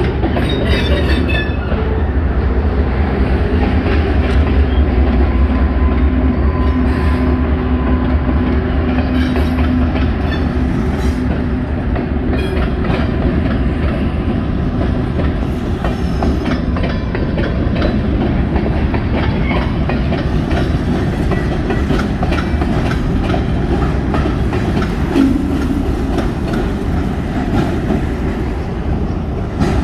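Long freight train rolling past, steel wheels clicking over rail joints under a steady rumble. A low diesel locomotive drone is strongest in the first several seconds, from a mid-train locomotive that has just passed, then eases off.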